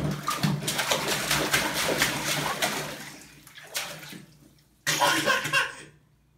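Bathwater splashing in a small tub as toddlers' hands slap and stir it. The dense splashing fades out about three seconds in, and a short burst of splashing comes near the end.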